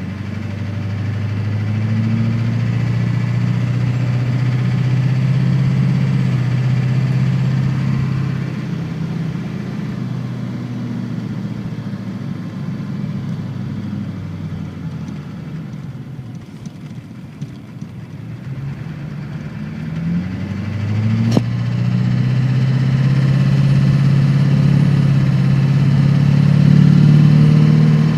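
Car accelerating twice, a loud low drone building with each pull and easing off in between; this drone is the noise heard under acceleration. A single sharp click about two-thirds of the way through.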